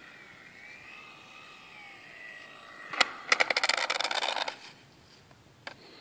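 Small electric motor of a Depron radio-controlled model plane whining faintly at low throttle as it comes in to land, its pitch wavering. About three seconds in the plane touches down on asphalt with a sharp knock, then rattles and scrapes along the road for about a second and a half.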